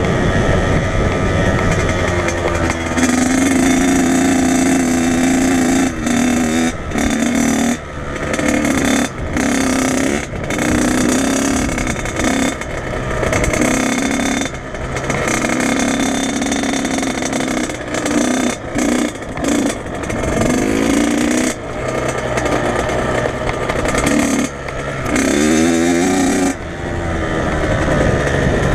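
Dirt bike engine revving hard and easing off over and over, its pitch rising and falling with the throttle. It is broken by brief sudden dips in level every second or two.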